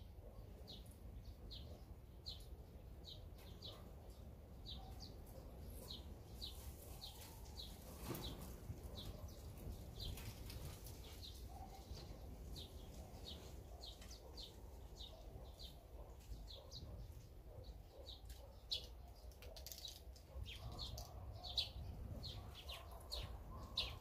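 Small songbirds chirping: a steady series of short, high, falling chirps about twice a second, over a low rumble, with two brief rushes of noise, one about a third of the way in and one near the end.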